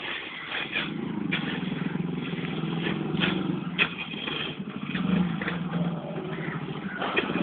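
An engine running steadily from about a second in, with a few sharp clicks over it.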